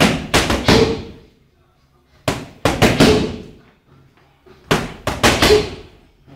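A boxer's hard punches landing in three quick combinations of about four blows each, a little over two seconds apart, each blow a sharp smack.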